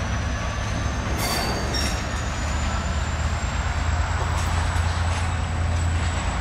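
Train of car-carrier wagons rolling past: steady low rumble of wheels on rail with a thin, high wheel squeal held throughout, and a couple of clicks over the rails about a second and a half in.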